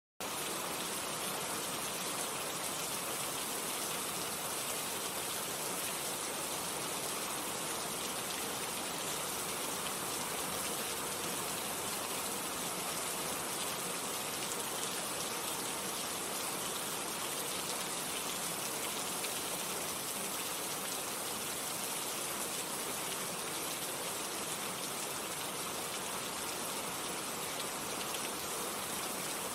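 Steady heavy rain, an even hiss of many drops falling without pause or change.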